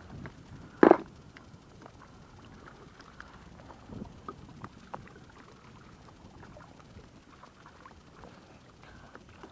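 A single sharp knock about a second in, then faint scattered clicks and rustles as a clear plastic case is handled aboard a plastic kayak, over light lapping of water.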